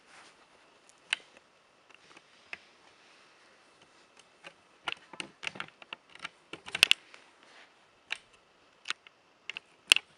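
Irregular light clicks and taps from handling a handheld camera: a few scattered ticks at first, then a quicker cluster in the middle, with the sharpest clicks about two-thirds of the way in and near the end.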